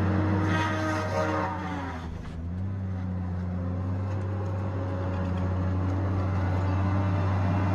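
Tigercat 870C feller buncher's diesel engine running steadily. About a second in, a higher whine falls in pitch, and the sound dips briefly around two seconds before levelling out again.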